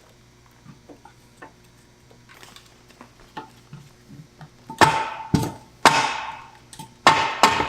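Light metallic taps and clicks, then four loud ringing metal strikes as a Strange rear-end third member is knocked loose from the axle housing; it is stuck fast by its RTV sealant.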